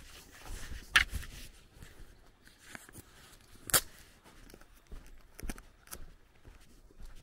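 Footsteps on a dirt and gravel village lane, with irregular sharp clicks. The two loudest come about a second in and a little before the middle.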